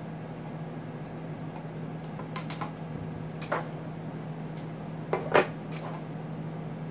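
A few light clicks and taps of a small metal tin and a pocket knife being handled while the tin's plastic wrap is cut off, the loudest a sharp click about five seconds in. A steady low hum runs underneath.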